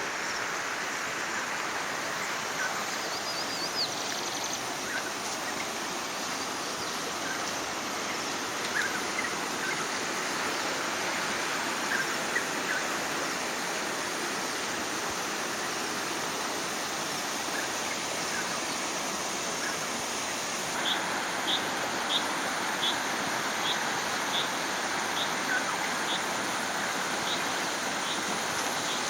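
Steady rush of a stream or waterfall, with small birds chirping over it. Chirps come here and there at first, then a single high chirp repeats evenly, about every half second or so, through the last third.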